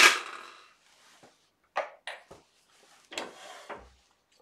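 Metal lathe hardware being handled while a wooden pen blank is fitted in a four-jaw chuck. A sharp metallic clank rings briefly at the start, then come a few lighter clicks and, about three seconds in, a short rattling scrape.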